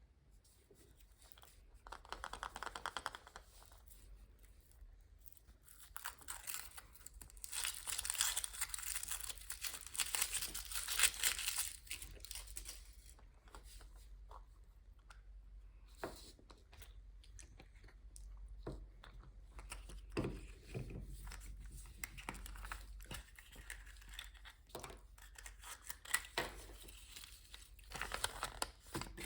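Foil wrapper of a Kinder Surprise egg crinkling and tearing as it is unwrapped, in several spells, loudest in the middle. Scattered sharp clicks and softer rustles of handling follow.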